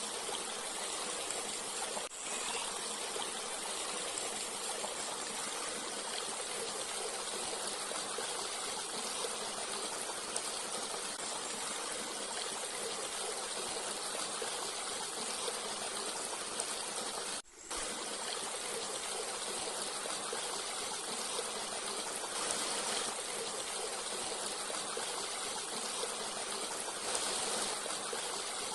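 Stream water flowing steadily. The sound cuts out for an instant twice, about two seconds in and again about seventeen seconds in.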